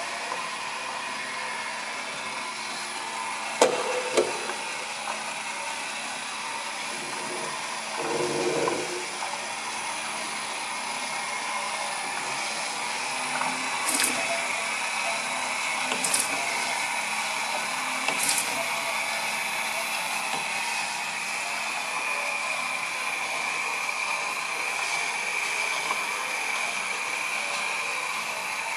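A 2004 PALS automatic bottle labeller-bander running, with a steady mechanical hum and a high whine from its conveyor and label applicator. A few clicks and a knock come in the first third, and three sharp ticks about two seconds apart come near the middle.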